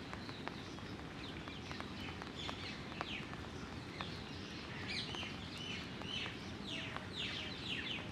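Birds calling: many short downward-sweeping chirps, busier in the second half, with scattered sharp ticks over a steady low background noise.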